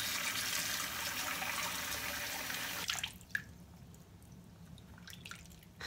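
Water running steadily from a tap, cut off sharply about three seconds in, then a few small splashes and drips.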